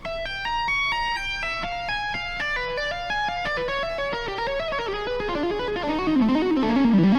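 Electric guitar playing a fast lick of single notes in repeating stepped interval patterns, climbing and falling, then dropping to lower notes near the end.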